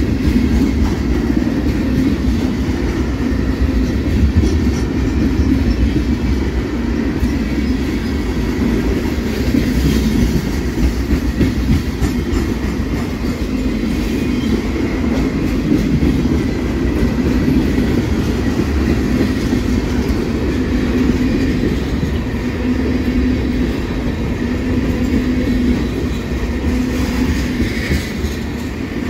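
Freight cars of a mixed CSX freight train rolling past at close range: a steady rumble of steel wheels on the rails.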